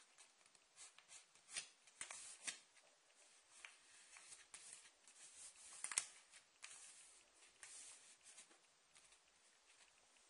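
Faint rustling of a folded sheet of paper being eased apart and pressed flat by hand, with scattered soft clicks and a sharper tap about six seconds in.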